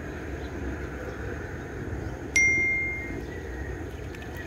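A single bell-like metallic ding about two and a half seconds in, ringing clearly for under a second, over a steady low outdoor background noise.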